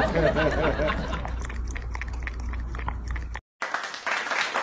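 A voice over a steady low hum, cut off abruptly about three and a half seconds in. Applause starts right after the cut and runs to the end.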